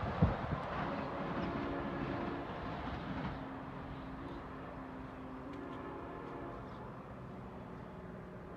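Amtrak Pacific Surfliner train passing, with sharp knocks near the start and a rumble that fades over the first few seconds as it moves away. Faint steady tones carry on underneath.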